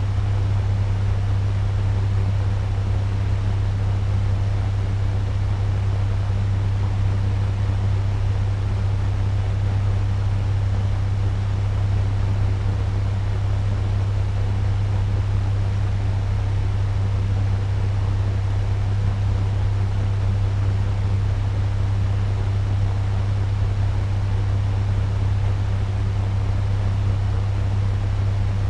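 Turbo fan running steadily at medium speed: a constant deep hum under an even rush of moving air.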